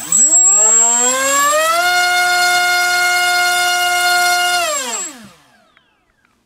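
MultiStar V-Spec 2205 2350 kV brushless racing-quad motor turning a 5x4.5 Dalprop prop on a 3-cell pack on a thrust stand: a loud whine that rises in pitch for about two seconds as it spins up, holds steady for nearly three seconds, then winds down and stops about five seconds in.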